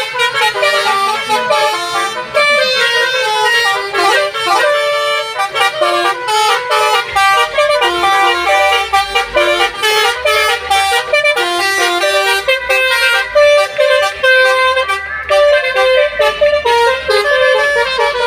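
A set of multi-tone basuri 'telolet' horns playing a fast melody, the notes changing several times a second. A low bass line joins about seven seconds in.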